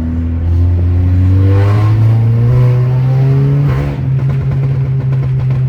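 Audi A3 2.0T turbocharged four-cylinder on a Stage 2 tune with CTS downpipe and Borla exhaust, heard from inside the car: the engine note rises steadily in pitch over the first three seconds, then holds steady.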